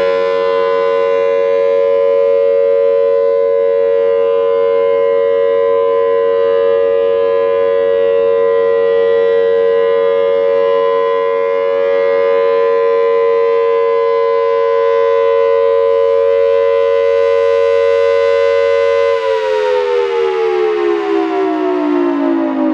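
Federal Signal Thunderbolt 1000T outdoor warning siren sounding a loud, steady alert tone. Near the end it begins to wind down, its pitch falling, marking the end of the three-minute alert signal.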